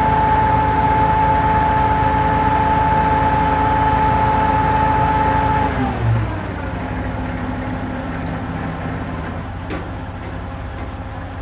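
Truck crane's engine running at raised revs with a steady whine, then about six seconds in the revs fall away to idle with a short low thump. A few faint light clicks follow over the lower engine idle.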